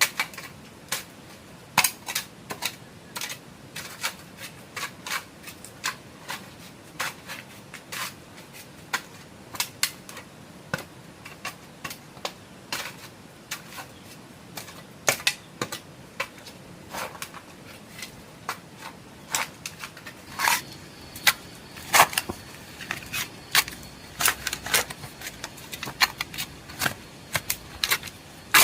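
Irregular sharp taps and clicks, several a second and uneven in strength, with a few louder knocks toward the end.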